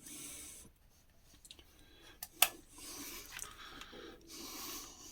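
Rubbing and scuffing of hands working test leads and connectors onto the terminals of a Dyson V6 vacuum motor, with one sharp click about two and a half seconds in.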